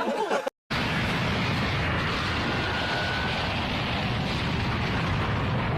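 Explosion sound effect: a dense, steady rumble that starts abruptly after a moment of silence and holds at an even level for about five seconds.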